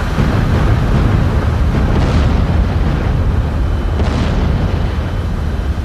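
Bomb explosions with a heavy, continuous low rumble, and fresh blasts breaking through about two and four seconds in.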